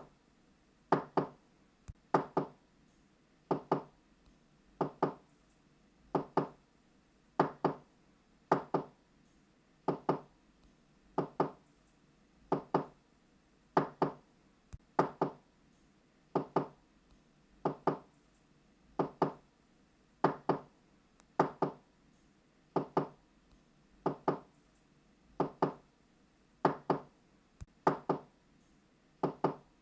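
Knocking on a door in quick double knocks (knock-knock), each pair repeated about every second and a quarter at a steady pace.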